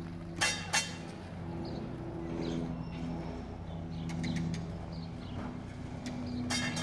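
Vintage double-deck electric tram moving slowly on street rails with a steady humming drone whose pitch drifts a little. Sharp metallic clicks come about half a second in, just before a second in, and again near the end. Small birds chirp faintly now and then.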